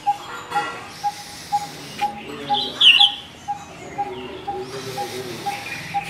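Coppersmith barbet calling its monotonous 'tuk' note over and over, about two a second. About three seconds in comes a brief, louder high chirp, with faint twittering behind.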